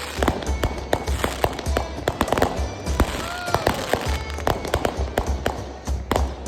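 Firecrackers and fireworks going off in rapid, irregular cracks and bangs, mixed with music that has a pulsing low bass.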